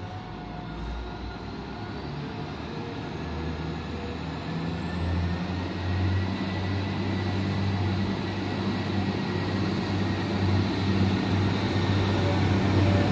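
Class 175 diesel multiple unit running into the platform, its engines humming low and growing steadily louder as it nears. A thin high whine rises in pitch over the first half, then holds steady.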